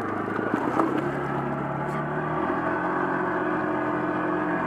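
ATV engine running steadily under load as the quad pushes through deep muddy water, its note shifting slightly about halfway through.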